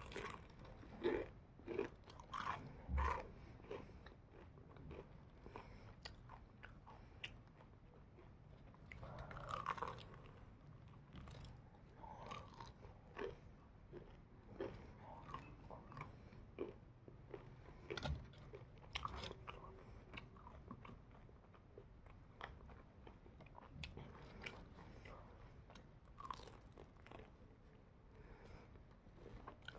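Someone biting and chewing crispy fried chicken close to the microphone, with irregular crunches of the coating, loudest in the first few seconds.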